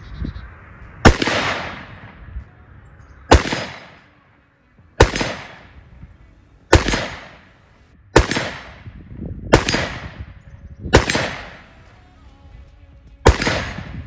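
Eight rifle shots from an AR-15 in .223 Wylde with an 18-inch barrel, firing 55-grain hollow points, fired one at a time about one and a half to two seconds apart. Each crack is followed by an echo that dies away over about a second.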